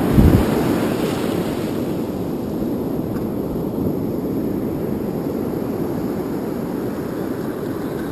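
Wind buffeting the camera's microphone, with ocean surf rushing behind it. A single low thump comes right at the start.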